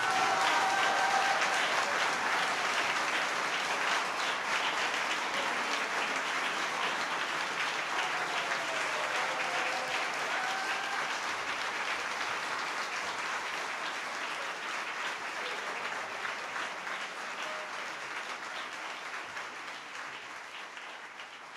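Audience applauding at the end of an accordion performance, a dense steady clapping that slowly fades away over the last several seconds.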